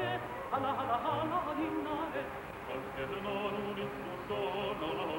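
Music: a wavering, ornamented melody line over short held low notes.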